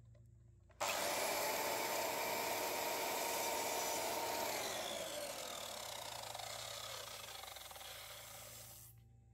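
Ozito mitre saw switched on, its motor and blade running at full speed for about four seconds as it cuts through a timber wall slat. Then the trigger is released and the blade spins down with a falling whine that fades out over about four seconds.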